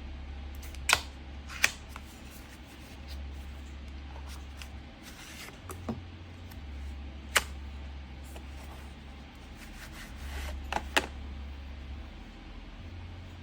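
About five sharp clicks and taps of objects being handled, a pair coming close together near the end, over a low steady hum.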